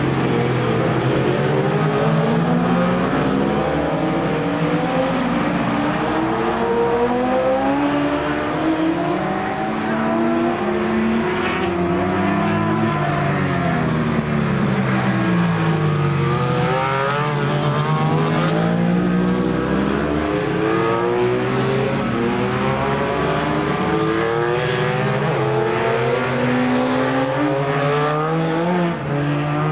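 Racing motorcycles at race pace, several engines overlapping, their pitch climbing through the gears and dropping off under braking again and again.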